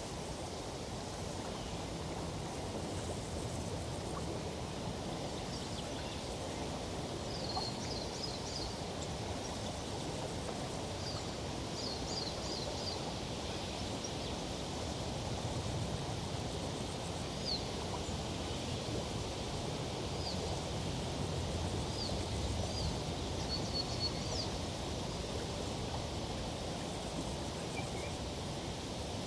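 Steady rustle of tree foliage in a summer breeze, blended with the wash of a river. Brief, high bird chirps come in small clusters now and then through the middle.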